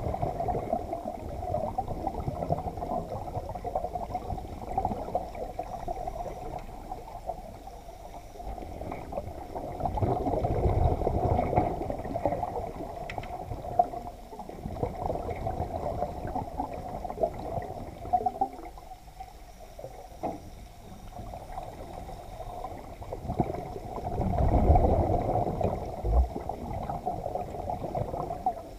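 Muffled water noise heard through an underwater camera held just below the sea surface: a steady, dull wash with low rumbling swells of water movement about ten seconds in and again about twenty-five seconds in.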